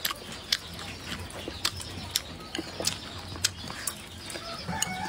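Close-up chewing of stir-fried pig large intestine: wet mouth clicks and smacks about twice a second as the chewy pieces are worked.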